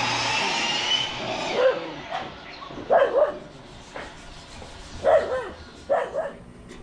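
A dog barking: single short barks spaced a second or two apart, with a brief rushing noise at the very start.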